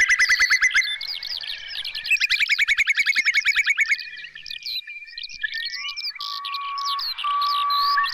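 Whimbrel giving its fast, rippling trill of whistled notes twice, with short higher chirps of other birds among it. About six seconds in come two long, level whistles, each about a second.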